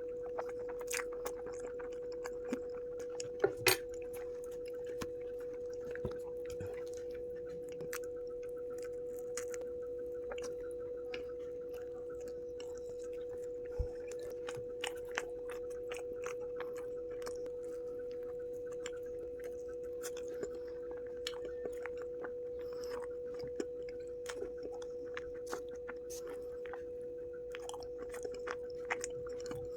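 A person chewing food close to the microphone, with many small irregular wet mouth clicks and bites. A steady single-pitched hum runs underneath throughout.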